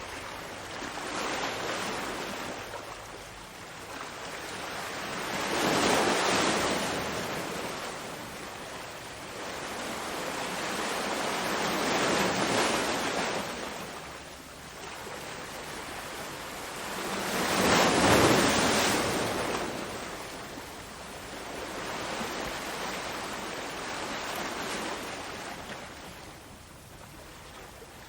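Ocean waves breaking and washing in, swelling and fading in slow surges about six seconds apart; three larger waves stand out, with smaller ones between.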